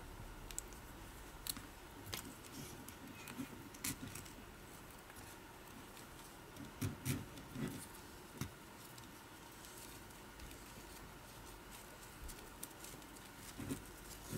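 Camera neck strap being threaded through a Sony a5100's strap lug and pulled through by hand: faint rustling of the webbing with scattered small clicks and taps, a brief cluster of louder taps about seven seconds in and another near the end.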